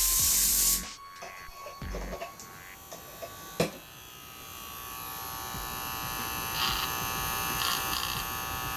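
A short spray hiss that stops under a second in, a few clicks, and a sharp click about three and a half seconds in. Then an electric barber hair trimmer runs with a steady buzz that slowly grows louder, with brief rasping bursts near the end, while it is checked after blade sharpening.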